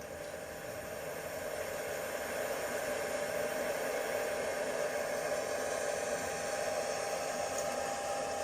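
Steady hissing noise with a faint steady tone under it, growing slowly louder.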